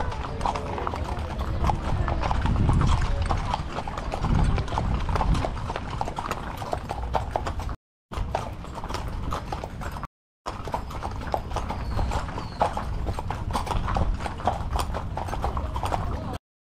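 Hooves of several saddle horses clip-clopping at a walk on a dirt trail, an irregular run of many overlapping hoof clops. The sound cuts out briefly twice near the middle.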